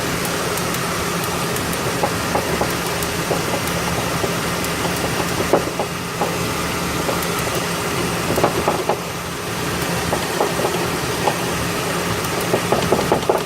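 Ford XH panel van engine idling steadily, with a few light clicks here and there. The air-conditioning compressor has just been tightened, and the knock and rattle it made when loose are gone.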